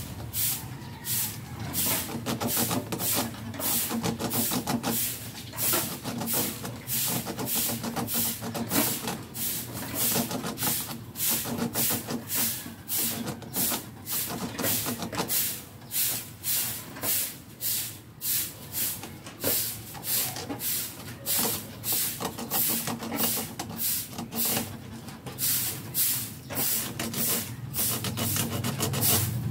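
Steady hand scraping or filing strokes at the end of a welding cable, about two or three rasping strokes a second, with a low steady hum underneath.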